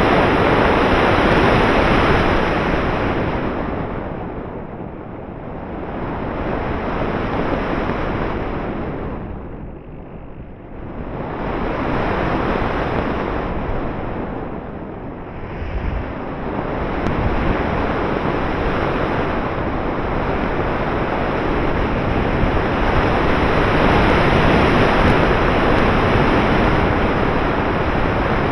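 Airflow rushing over the onboard action camera's microphone on a model plane in flight: a loud, even wind roar that swells and fades, dropping away three times, most deeply about ten seconds in.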